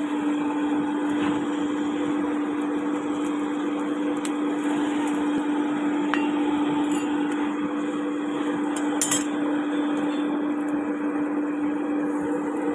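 A small motor running steadily with a constant hum, with a few light metallic clicks over it.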